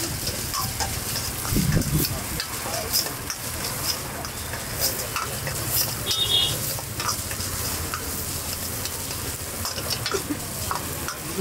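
Sliced onions and green chillies sizzling in hot oil in an iron wok, stirred and tossed with a metal ladle that scrapes and knocks against the pan again and again, over a steady low rumble.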